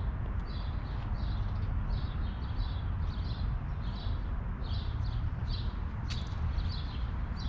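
A small bird chirping over and over, about two to three short high chirps a second, over a steady low outdoor rumble. There is a single sharp click about six seconds in.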